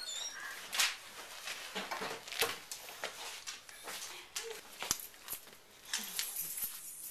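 A French bulldog puppy's claws clicking and tapping irregularly on a hard tiled floor as it moves about.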